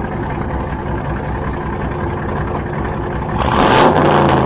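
Chevrolet Camaro V8 engine running steadily, then revved about three seconds in, getting much louder and staying loud.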